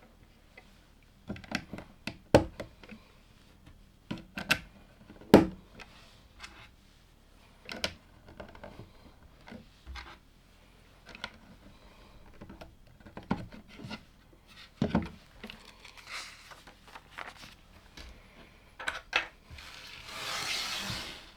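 LEGO plastic bricks being handled and pressed together: scattered sharp clicks and taps of small plastic pieces, with a short rustle about a second before the end.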